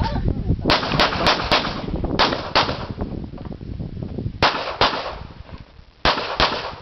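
Semi-automatic pistol fired in quick strings, about ten shots in all, each followed by a brief echo: four rapid shots about a second in, then three pairs of shots fired about two seconds apart as the shooter moves between target arrays on a practical-shooting course.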